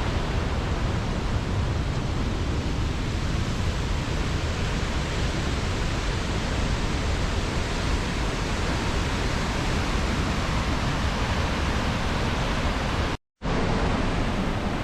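Steady, dense rush of white water from the Reekie Linn waterfall on the River Isla, running high in spate after heavy rain. The sound cuts out completely for a split second about 13 seconds in, then resumes.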